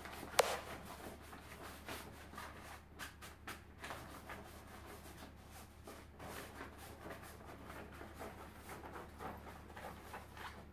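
Folding canvas wardrobe's fabric cover rustling and rubbing against its frame as it is pulled into place, with light irregular scuffs and taps over a low steady hum. A single sharp click near the start.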